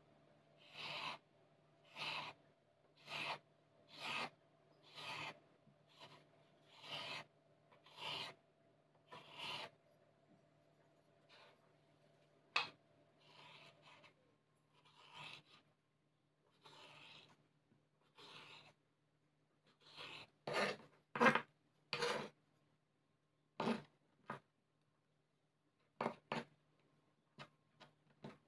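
Kitchen knife cutting a thin slice of ham on a wooden cutting board, the blade rasping along the wood with each stroke. There are about ten even strokes roughly a second apart, then a few fainter ones, then a run of sharper, louder cuts near the end.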